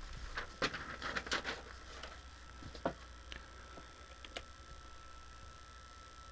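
A scatter of small clicks and taps, most in the first second and a half, then single ones near three and four and a half seconds, over a faint steady hum with a thin high tone.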